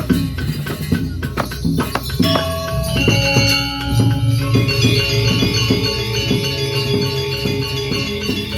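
Balinese gamelan music: a steady beat of drum strokes under ringing metal percussion. From about two seconds in, held gong-like metallic tones sound at several pitches.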